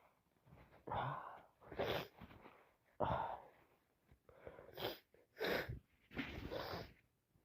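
A person with a heavy cold sniffling and sneezing: about six short, noisy bursts of breath roughly a second apart, the sharpest-starting one about three seconds in.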